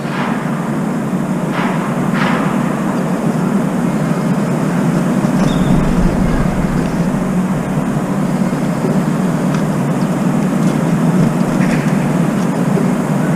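Steady, loud rumbling background noise, swelling slightly, with a few brief faint bird calls over it.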